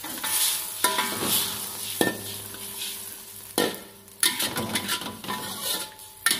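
Metal spatula stirring and scraping around a large metal wok, with a clank about every second that leaves the wok ringing briefly. Underneath, the watery spice sauce sizzles in the hot pan.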